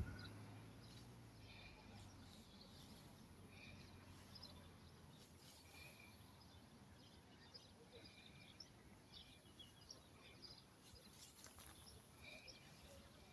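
Near silence: faint outdoor ambience with scattered short, faint high bird chirps.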